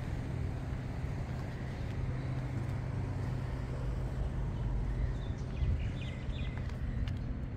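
City street ambience: a vehicle engine running with a steady low hum over general traffic noise, with a few short high chirps a little over five seconds in.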